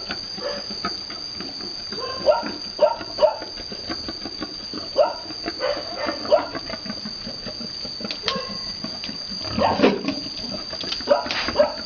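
Pigs grunting in short runs of two or three grunts, with a louder, fuller grunt a little before the end, over a steady high-pitched hum.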